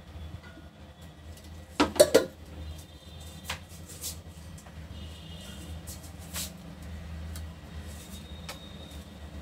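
Steel dishes and kitchen utensils clattering: a quick run of loud knocks about two seconds in, then scattered single clinks, a few of them ringing briefly, over a steady low hum.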